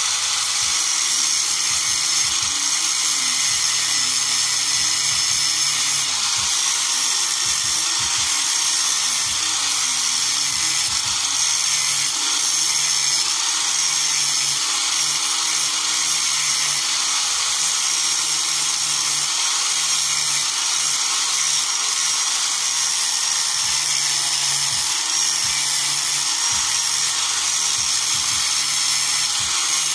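Electric angle grinder with a sanding disc running steadily, resurfacing the worn valve-contact tips of a Nissan TD27 diesel's rocker arms.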